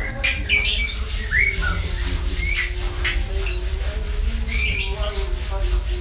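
Javan bush lark (branjangan, Mirafra javanica) singing in a string of short, high, chirping phrases with brief pauses between, over a steady low hum.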